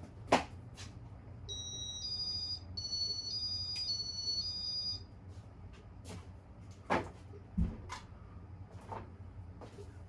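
Steady low hum of a Casablanca Victorian ceiling fan's motor. A sharp click comes at the start, then a short tune of high electronic beeps stepping up and down in pitch for about three seconds, then a few more clicks.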